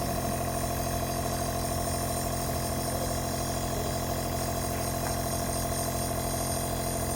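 Compressor nebulizer's small pump motor running with a steady, even hum.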